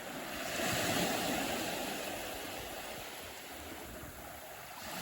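Sea waves washing on the shore: a surge about a second in that slowly fades away, with the next one starting near the end.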